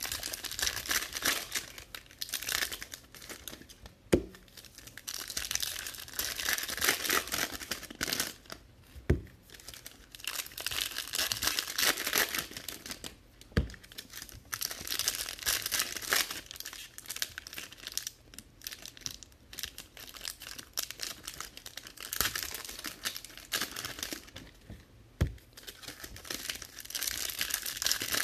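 Foil wrappers of baseball card packs crinkling and tearing as they are ripped open and peeled back by hand, in repeated stretches of a few seconds each. A few brief low thumps come between them.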